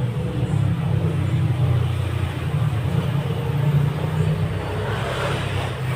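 A steady low mechanical rumble, unbroken throughout.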